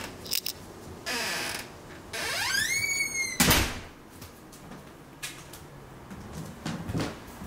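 A long creak that rises and then falls in pitch, about two seconds in, then a single heavy thump about a second later, from footsteps on a wooden staircase. Lighter rustling and small knocks come before and after.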